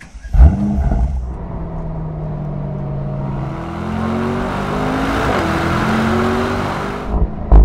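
Mercedes-AMG SL's 4.0-litre twin-turbo V8 engine, starting with a loud bark about half a second in, then running and being revved so the pitch rises and falls, with another loud rev near the end.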